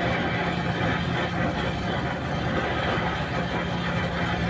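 Steady mechanical noise: a constant hum with a low steady tone and a hiss over it, unchanging throughout.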